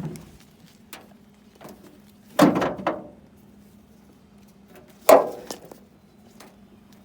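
Two loud bangs about two and a half seconds apart, each ringing out briefly, with a few light clicks before them.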